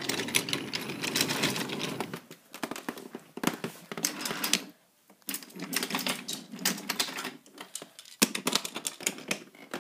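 Wooden toy train cars clattering along wooden track, a quick run of small clicks and rattles that pauses briefly about five seconds in and again near eight seconds.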